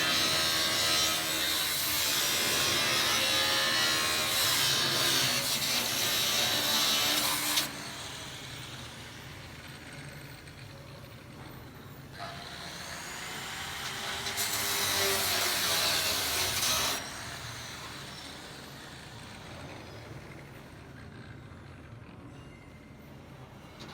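A power tool cutting into a narrowboat's steel bow, running hard and then cutting off suddenly about a third of the way in. A second, shorter run builds up in the middle and also stops abruptly.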